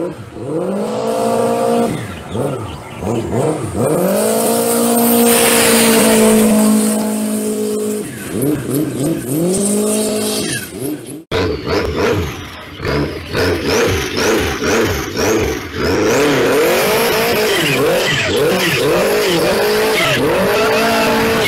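Toyota 3S turbocharged four-cylinder engine of a jet boat revving hard, its pitch rising and falling, and held high at full throttle for a few seconds as the boat passes. After a sudden cut about halfway through, the same engine is heard from on board, revving up and down over the rush of the water jet and spray.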